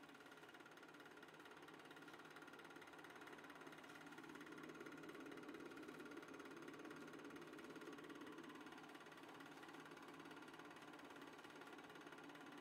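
Near silence: a faint steady hiss and hum.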